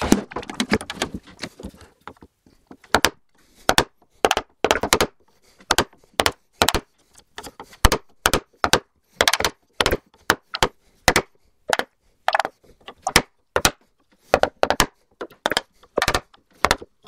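A wooden mallet strikes a bench chisel to chop out the waste between hand-cut finger joints in spruce. It makes a long, slightly irregular series of sharp knocks, about two a second.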